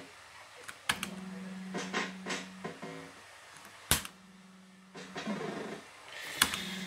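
Electronic sound effects of an early-1980s JPM fruit machine during play: a steady buzzing tone that stops and starts, and a brief warbling tune about five seconds in. Sharp clicks come from the machine as it plays, the loudest about four seconds in.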